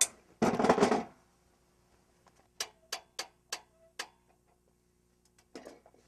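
A sawn plank scraping across the cant, loudest about half a second in. Then the Logosol Woodworker's Mill height-adjustment crank clicking five times, about three clicks a second, each click setting the saw a quarter inch higher, followed by a few fainter ticks and a short scrape near the end.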